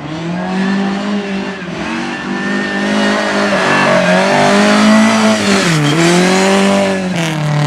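Speedway motorcycles racing on a cinder track, their single-cylinder engines held at high revs, with a sharp dip and pick-up in engine pitch about six seconds in as a bike is throttled off and back on through a corner.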